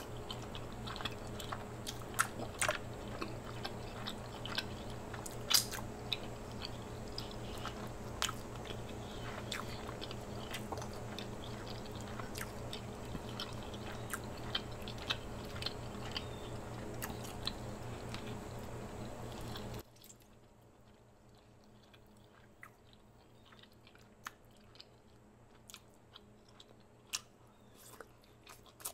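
Close-miked chewing and biting of king crab leg meat, with wet mouth clicks and smacks scattered throughout. A steady background hum stops abruptly about twenty seconds in, leaving the chewing over a quieter background.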